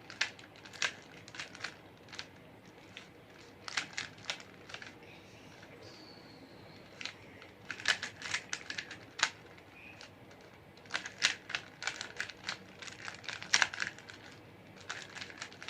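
Rubik's cube layers being turned by hand: irregular clusters of sharp plastic clicks and clacks, busiest around the middle and in the second half.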